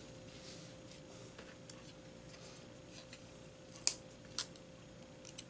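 Small craft scissors snipping: two sharp snips about half a second apart a little past halfway, then a quick double click near the end, over a faint steady hum.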